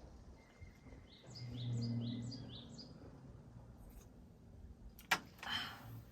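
A songbird sings a quick run of about eight falling chirps, over a low hum that swells and fades. About five seconds in there is a sharp click, followed by a brief rustle.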